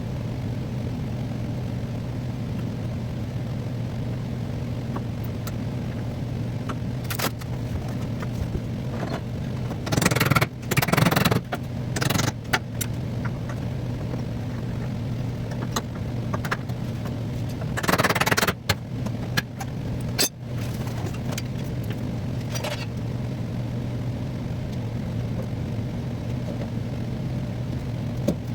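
A steady low mechanical hum, with short louder bursts of scraping or rustling noise about ten seconds in and again a few seconds before the end, plus a few clicks.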